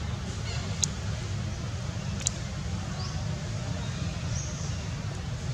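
Outdoor ambience: a steady low rumble, two sharp clicks about a second and a half apart, and faint short high chirps near the middle and near the end.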